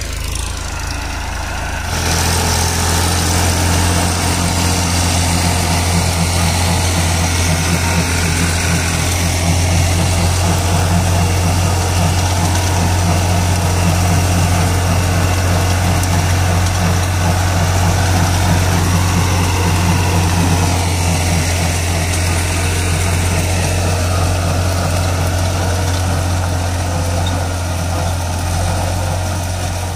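New Holland tractor's diesel engine running steadily under load while driving a PTO-powered rotary slasher that cuts standing grass. The sound gets louder about two seconds in and eases off slightly near the end.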